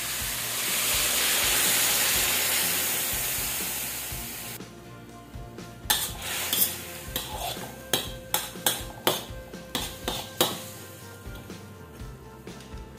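A little water hitting a hot steel wok of fried fish and vegetables sizzles loudly, the sizzle dying away over about four seconds as it boils off. Then a metal spatula stirs the wok, scraping and clinking against the steel in a run of sharp clicks.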